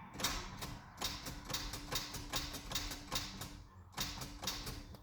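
A fast, irregular run of clicks and light knocks over a faint steady hum, ending abruptly.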